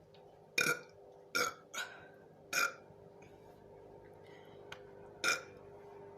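A person burping: four short belches in quick succession in the first three seconds, then one more about five seconds in.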